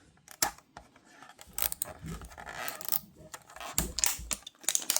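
Hands opening toy packaging: scraping, rustling and tearing of cardboard and plastic, broken by sharp clicks and taps, with a cluster of clicks near the end.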